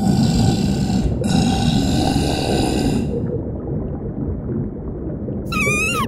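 Cartoon sound effects for an underwater scene: a dense low rumble throughout, two held tones in the first three seconds, and a short wavering tone near the end.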